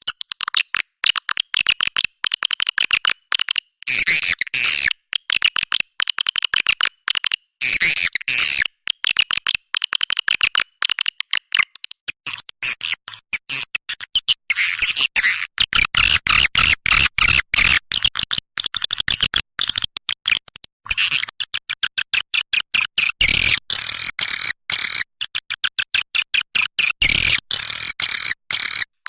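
Recorded swiftlet calls of the kind played to lure swiftlets to a nesting house: a dense, rapid chattering twitter of very short chirps, many per second, broken by brief gaps, with nothing in the low range.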